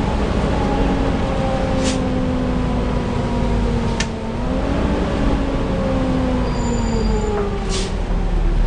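Volvo B7TL double-decker bus heard from inside while moving: a steady running rumble with the whine of the engine-driven cooling fan, the nickname 'hoover' sound, its pitch falling, rising briefly about halfway through, then falling again. Three short hisses of air cut through, about two, four and eight seconds in.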